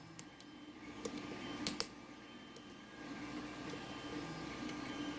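Lock pick and tension wrench working the pins of a lock: a few faint, sharp metallic clicks. The lock gives very little feedback and has not opened.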